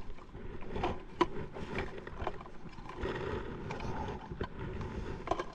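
Small fishing boat at sea: steady wind and water noise with a few scattered knocks and clicks.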